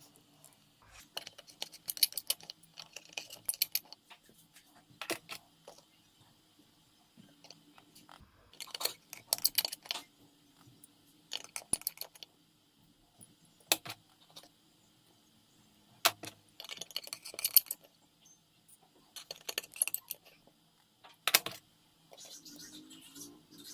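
Small tools and phone parts being handled during an iPhone 6 repair: irregular clicks, taps and light metal-and-plastic clatter in short clusters, with a few sharper single clicks.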